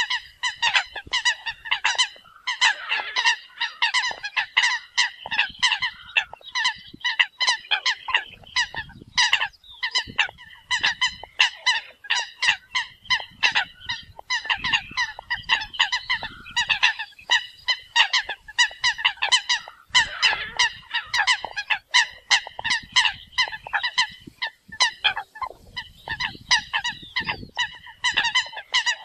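A flock of Eurasian coots calling: a dense, unbroken stream of short, sharp calls, several a second and overlapping, the contact and flocking calls of a group.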